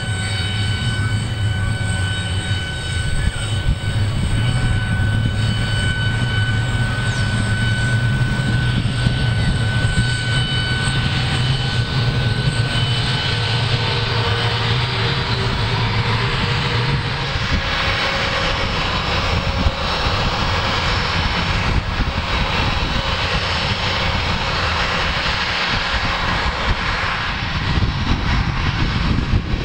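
Boeing 717's rear-mounted Rolls-Royce BR715 turbofans running at ground idle with a steady whine during pushback. About seventeen seconds in, a low hum drops away and the jet hiss grows louder.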